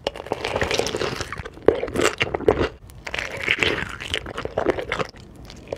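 Close-up eating sounds of a person biting into and chewing crispy sauce-glazed fried chicken: irregular crisp crunches and crackles, busiest in the first half and thinning out later.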